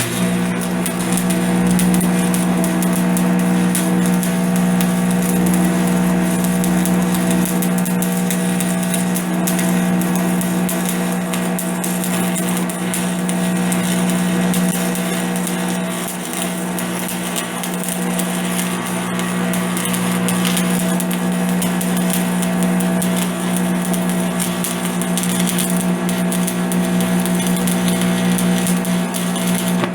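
Electric arc welding on a cast-iron wheel: a steady crackle and sizzle of the arc over the welding machine's hum.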